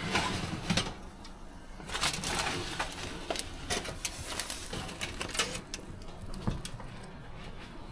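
Kitchen handling sounds: scattered clicks, clinks and rustling, such as a baking pan and foil being moved about, over a low steady hum.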